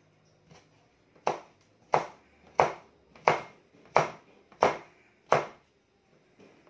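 Kitchen knife chopping sweet potato into fry strips on a cutting board: seven sharp, evenly paced chops, about one and a half a second, starting about a second in.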